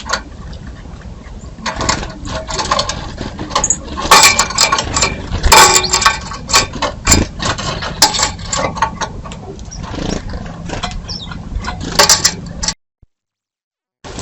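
Birds at a feeder: irregular pecking taps, wing flutters and scuffling, busiest a few seconds in. The sound cuts off suddenly near the end.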